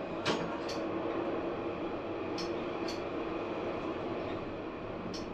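Tram running along the track with a steady hum, broken by sharp clicks that mostly come in pairs.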